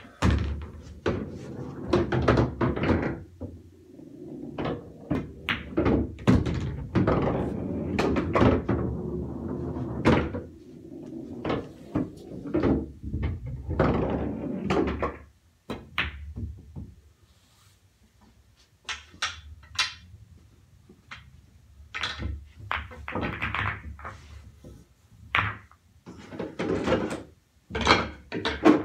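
Pool balls clacking off the cue ball and dropping into the pockets of a bar-style pool table, with long rumbles as they roll through the table's ball-return channel. In the second half there are sharper separate knocks as the balls are gathered and set into the triangle rack.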